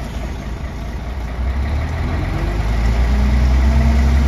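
Concrete mixer truck's diesel engine, heard from inside the cab, speeding up from idle about a second and a half in and then holding a higher, louder steady speed: the driver is giving throttle to turn the drum faster and push the concrete out.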